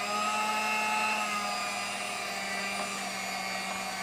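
Electric hand mixer running steadily with a motor whine, beaters churning thick glue slime in a bowl; pretty loud.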